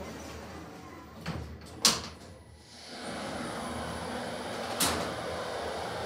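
Otis Gen2 passenger lift: the car doors slide shut with a sharp clunk, then the car sets off with a steady running noise and a faint high whine. A second, smaller knock comes near the end.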